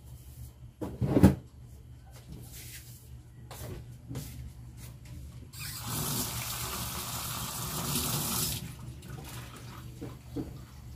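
A single loud thump about a second in, then running water for about three seconds, starting and stopping abruptly about halfway through.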